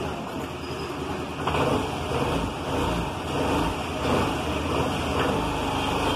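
Motor vehicle noise: an uneven engine rumble with hiss, getting louder about one and a half seconds in.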